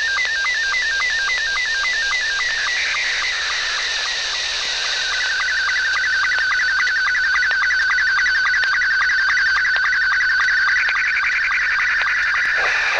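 Low-speed digital data signal received on the 11 m CB band in sideband mode by a Quansheng UV-K5 handheld: a warbling tone that steps back and forth between two pitches several times a second. About five seconds in it settles into a steadier tone with rapid ticking.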